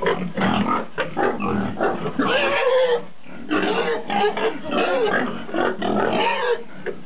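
Pigs grunting in a dense, almost continuous run of short calls, with a brief break about three seconds in.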